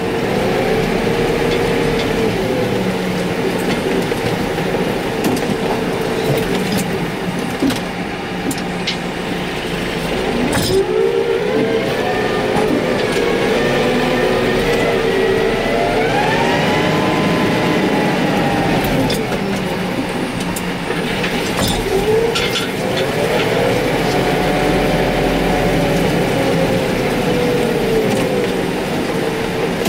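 Case IH Farmall 115U tractor's four-cylinder diesel engine running, heard from inside the cab, while the yard is scraped. Its note rises and falls twice as the revs change, and there are a few brief knocks and clatters.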